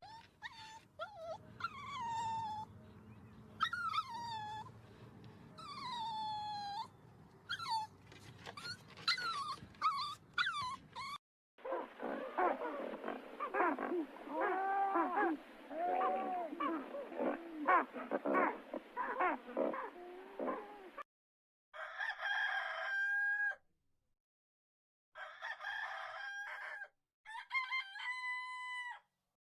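Animal calls in three separate clips: first a run of repeated calls that fall in pitch, then a dense chorus of many animals calling over one another, then a few short calls held on a steady pitch.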